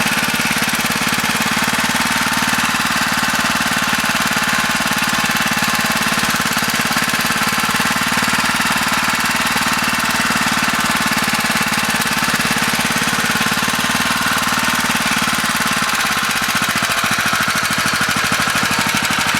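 Small engine-driven water pump running steadily at constant speed, pumping out floodwater. Its note changes slightly about sixteen seconds in.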